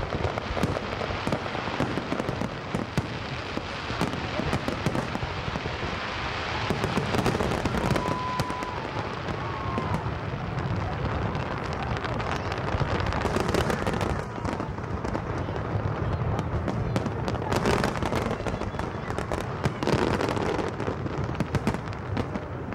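Aerial fireworks shells bursting in quick succession: a continuous dense crackling with many sharp bangs, and a brief high whistle about eight seconds in.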